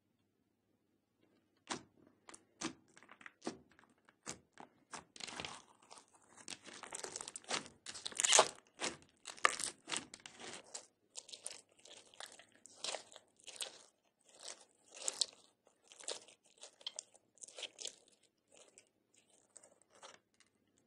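Hands squeezing and kneading slime studded with small beads, giving sticky crackling, crunching pops. The pops begin about two seconds in, come thickest in the middle and then as separate squeezes toward the end.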